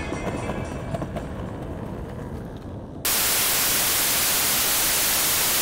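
Music fading out under a faint low rumble, then about three seconds in a sudden loud, steady static hiss cuts in and holds, a white-noise transition effect.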